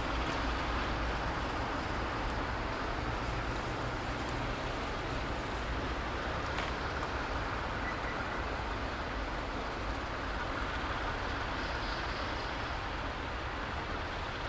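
Diesel locomotive and its passenger train running away along the tracks: a steady low rumble and rail noise that slowly fades.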